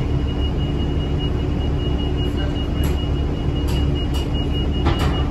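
Cabin of a 2008 New Flyer D40LF diesel bus: steady low engine and ventilation rumble with a constant hum. A few sharp clicks come between about three and five seconds in.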